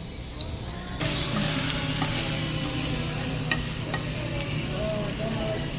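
Slices of beef sizzling on a hot tabletop Korean barbecue grill pan. The sizzle comes in loud about a second in, with a few light clicks of metal tongs on the pan.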